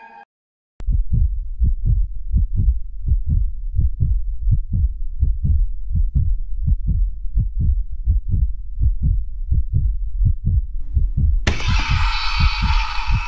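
Heartbeat sound effect: a fast, steady run of low thumps that starts after a brief silence under a second in. Near the end a loud sound with several held tones cuts in sharply over it.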